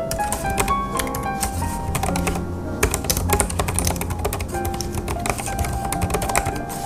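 Typing on a Hansung BK300 compact Bluetooth keyboard with pantograph (scissor-switch) keys: a quick, uneven run of key clicks, over background music.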